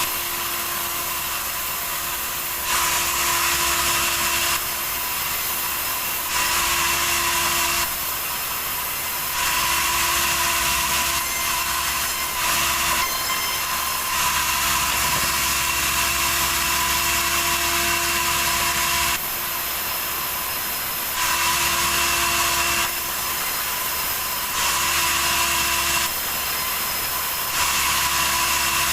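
Sawmill saw running and cutting yellow teraf wood, a steady machine sound with a constant whine. It swells and eases every two to four seconds as the cut goes on.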